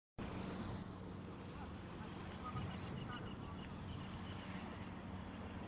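Steady rushing noise, like wind and water, under a low steady hum, with a few faint short chirps about halfway through.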